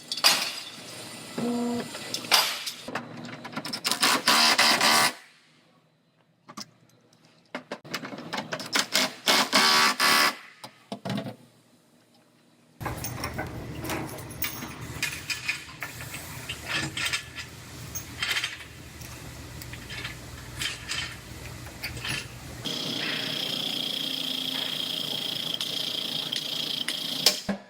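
Body-shop pulling work on a frame machine: stretches of loud metallic clanking and rattling with short quiet gaps, then a steady low mechanical hum with scattered clicks, and near the end a steady high whine.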